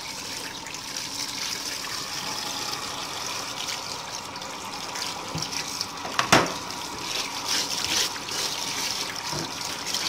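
Tap water running and splashing over a vacuum cleaner's cloth dust bag in a sink as it is rinsed and turned by hand. A single sharp knock about six seconds in.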